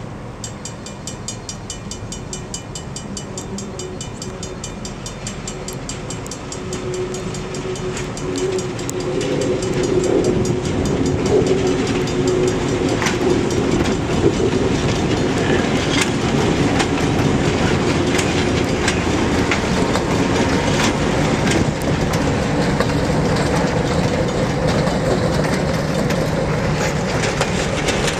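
Canadian National diesel locomotives, a four-axle road switcher and a GMD-1, approach and pass slowly with their engines running, getting louder as they near. Wheels click over the rail joints.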